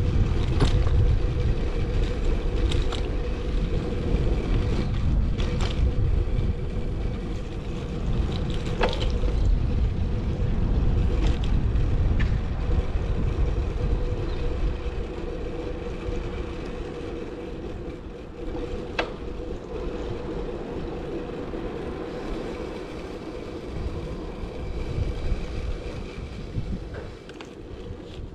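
Wind buffeting a chest-mounted action camera's microphone while riding a road bike, under a steady low rumble with a faint hum and a few sharp clicks. It is louder in the first half and eases off from about midway.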